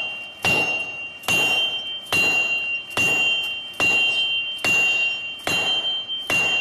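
Hammer striking an anvil at a steady pace, a little more than once a second, each blow ringing with a high metallic tone.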